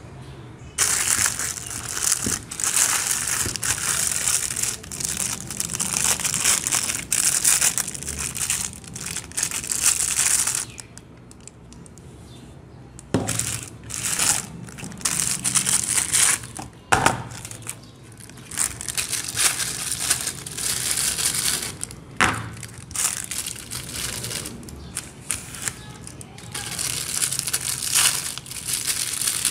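Crinkly plastic soap wrappers being crumpled and torn off bars of soap, in bouts with short pauses, with a few sharp clicks between them.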